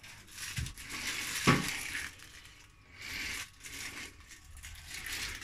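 Rustling and light handling noises as slices of cheese are laid onto bread, with one knock about one and a half seconds in.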